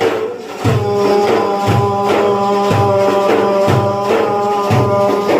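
Instrumental interlude in devotional Sufi music: a sustained melody over a steady beat of hand-struck frame drums, with a strong low stroke about once a second and lighter strokes between.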